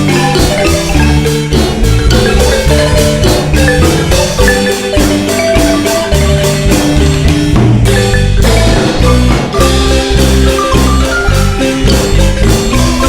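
Marimba music: fast struck mallet notes over a steady bass line and percussion beat.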